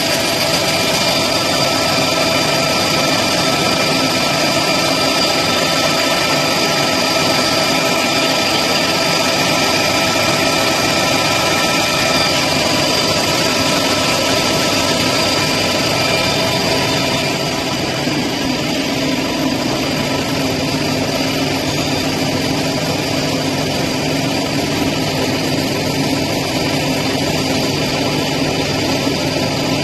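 Heavy-plate deburring machine running steadily, a dense mechanical noise with a constant whine over it; the sound shifts slightly and gets a little quieter about two-thirds of the way through.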